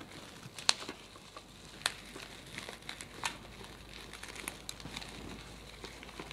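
Black plastic wrapping being peeled and pulled off a small parcel by hand, crinkling steadily, with a few sharper crackles in the first half.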